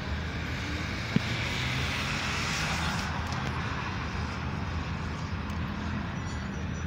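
A small hatchback's engine accelerating down a drag strip, heard from far off as a steady drone with outdoor noise. There is one sharp click about a second in.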